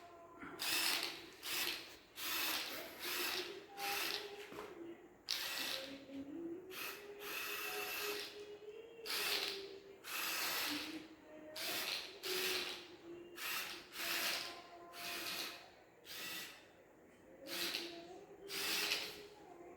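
Small DC gear motors of an Arduino Bluetooth remote-control car whirring in short spurts, starting and stopping over and over as drive commands are sent, with a faint motor whine that rises and falls in pitch.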